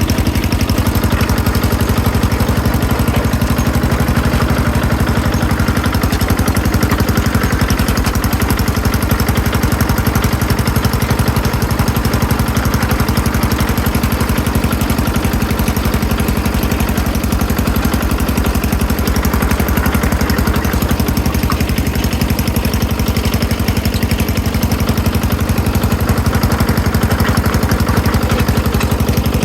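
Yanmar HD800 hand bulldozer's engine running steadily at a constant speed, with an even, rapid beat of firing pulses.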